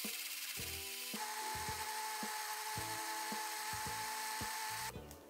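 Countertop blender running, its motor whirring as it purées kimchi seasoning (red chillies, garlic, ginger, cooked rice, salted shrimp and fish sauce in liquid). About a second in the sound changes and a steady whine comes in, and the motor stops shortly before the end.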